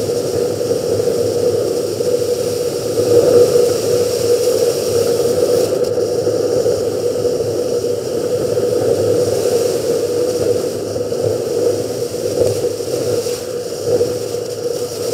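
A vehicle's engine running steadily while driving, mixed with steady tyre and wind noise from a dirt road.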